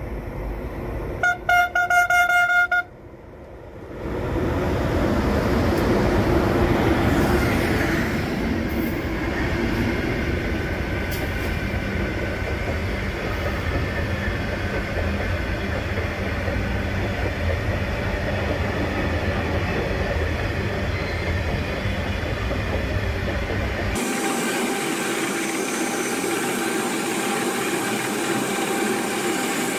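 A freight locomotive's horn sounds a short blast and then a longer one about a second in. Then the iron ore train's wagons roll past with a steady heavy rumble and rattle of steel wheels on rail. The deepest part of the rumble drops away suddenly near the end.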